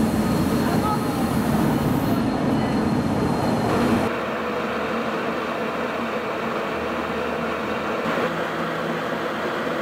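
City street noise with a tram running on the rails, then an abrupt change about four seconds in to a steadier, quieter rumble and hum of a tram moving along the street.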